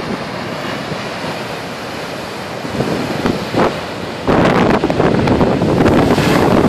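Storm surf breaking on the beach under blizzard wind, a steady rushing noise; from about four seconds in, strong gusts buffet the microphone and the sound turns much louder.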